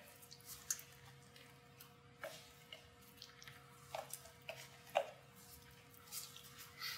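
Spatula scraping ricotta cheese out of a plastic tub into a stainless steel bowl: a few faint soft scrapes and taps over a steady low hum.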